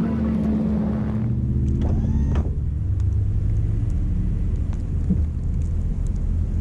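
Pickup truck engine running with a steady low rumble, with a brief whine about two seconds in.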